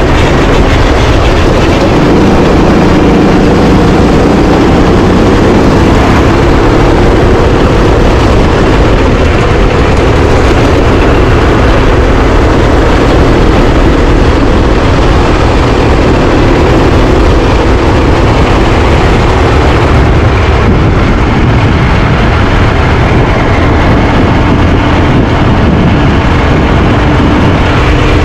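Rental racing kart's engine running hard on track, loud and continuous, its pitch shifting a little with throttle and speed.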